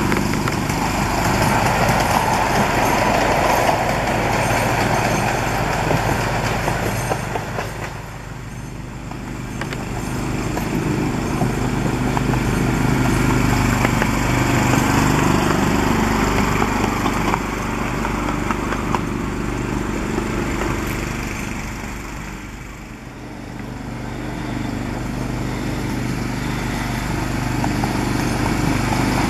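Mardyke Hymek miniature ride-on locomotive running along the track, its small engine running steadily with a mower-like note. The sound fades briefly twice, about eight seconds in and again near twenty-three seconds, as the train passes further away, then comes back up.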